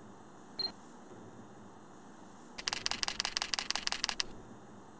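Samsung NX300 camera firing a burst in continuous-high mode: a rapid, even run of shutter clicks at about eight to nine a second, lasting about a second and a half. A short high beep comes about half a second in, before the burst.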